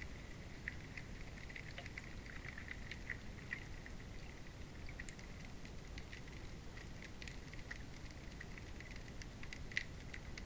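Under-ice hydrophone recording of a river: a steady low rumble of moving water with a dense scatter of small clicks and ticks, one sharper click near the end.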